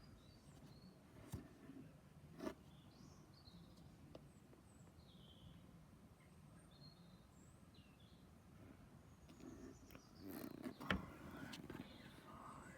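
Faint, scattered bird chirps, short and high, over a low background hiss. There are a couple of sharp knocks early, and a louder stretch of noise near the end that holds the loudest knock.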